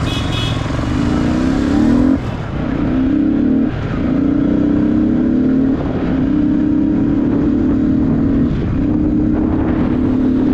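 Yamaha R15's single-cylinder engine accelerating hard through the gears. Its note comes in five stretches of a second or two, each climbing slightly, with short breaks where it changes up.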